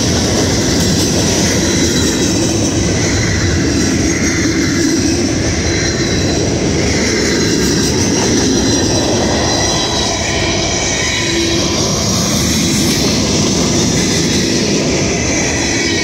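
Freight train's cars rolling past close by: a steady, loud rumble of steel wheels on the rails that never lets up.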